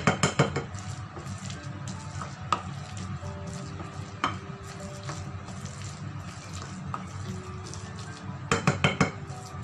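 Wooden spoon stirring thick grated-pumpkin batter in a ceramic bowl, scraping and knocking against the sides. There are quick runs of knocks at the start and again near the end, with single taps between.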